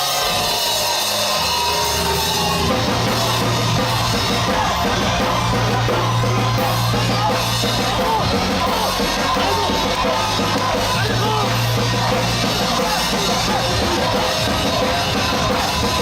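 Loud heavy rock music with a pounding drum kit and sustained bass notes; the mix gets denser about three seconds in.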